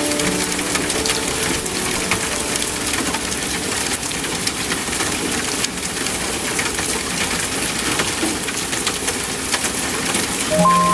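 Steady rain with a dense patter of small drop ticks. Soft held musical notes fade out about a second in and come back in just before the end.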